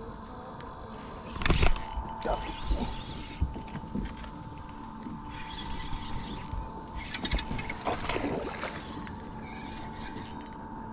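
A hooked largemouth-type bass being reeled to the boat on spinning tackle, splashing at the surface, with the loudest splash about a second and a half in and more thrashing later. A steady faint high hum runs underneath.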